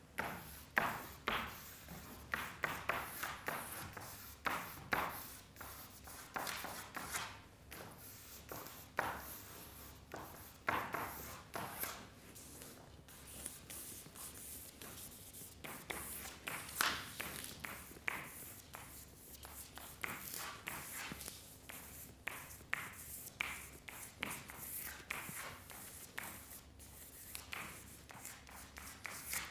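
Dry drawing strokes scraping and rubbing across a large sheet of paper on a wall, coming in quick irregular runs of short scratches.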